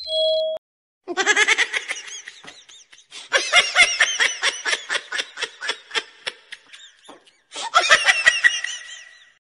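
A person laughing hard in rapid high-pitched bursts, in three bouts with short breaks between. A brief electronic chime sounds at the very start.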